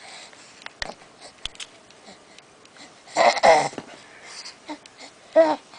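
Baby making breathy, wheezy vocal sounds: a loud one about three seconds in and a shorter one near the end, with a few small mouth clicks before them.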